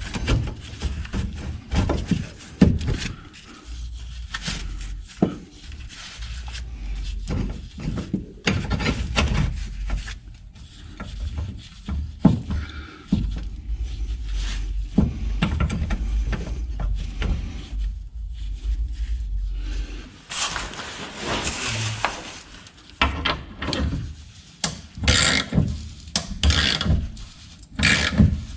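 Irregular metal knocks and clicks of hand tools being worked on the suspension, with a steady low hum under them for much of the middle, as a ball joint press with a hole saw for a receiver cup is set up to push out a worn trailing arm bushing.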